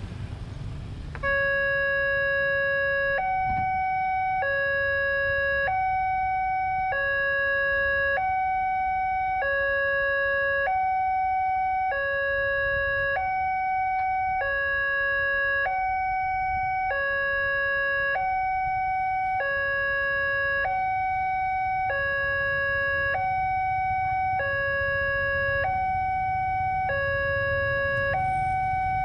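Railway level-crossing warning alarm sounding a two-tone electronic signal, alternating evenly between a low and a higher note about once a second. It starts about a second in and warns that a train is approaching as the barrier closes.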